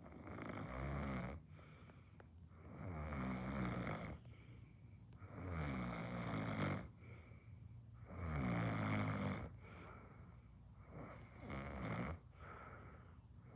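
A sleeping person snoring loudly and rhythmically: five long, pitched snores about every two and a half to three seconds, with quieter breathing between them.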